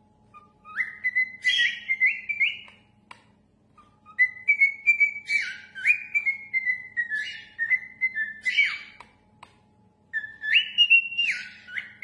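Cockatiel whistling a tune: clear notes that step and glide up and down in pitch, in three phrases with short pauses between them.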